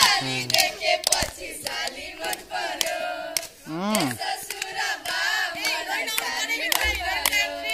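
A group of children singing and shouting together, many high voices overlapping, with scattered hand claps.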